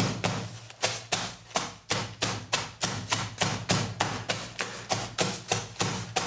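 Rapid, steady hammer blows, about three to four a second, crushing charcoal wrapped in paper into smaller pieces.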